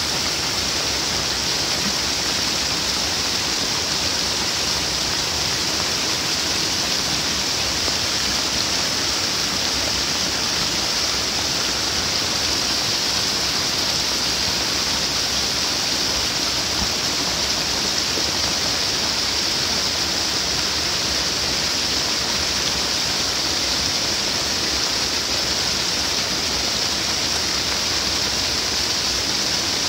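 Steady rushing hiss of water from heavy rain and runoff, even and unbroken.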